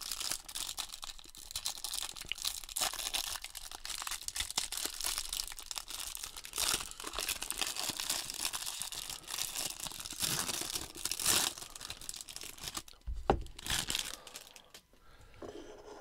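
Plastic bag of trading cards being torn open and crinkled by hand, a dense irregular crackling, with a soft knock near the end.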